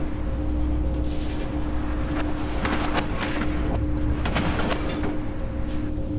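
A series of sharp bangs and cracks as a broom and other objects are swung against chairs and furniture, most of the blows in the second half, over a steady low hum.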